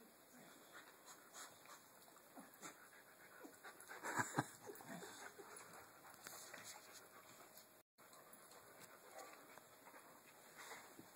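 A boxer and a smaller dog play-fighting over a rope: faint panting and scuffling, with a short louder burst of two sharp sounds about four seconds in.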